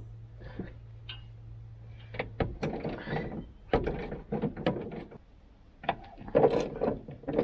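Socket ratchet clicking in quick irregular bursts while undoing the factory airbox mounting bolts, starting about two and a half seconds in, with a short pause near the middle.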